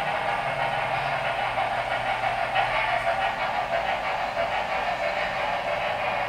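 Sound decoder in an HO scale Norfolk & Western Y6b 2-8-8-2 model steam locomotive, playing steady steam running sounds through its small speaker as it pulls a long freight train. Mixed with the rolling of the model freight cars on the track.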